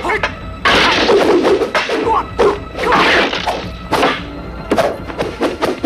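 Kung fu film fight sound effects: a rapid, irregular string of punch and kick impacts over the film's music score.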